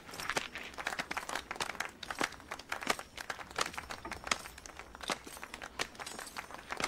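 Scattered, uneven applause from a handful of people, with leather-gloved hands clapping among them.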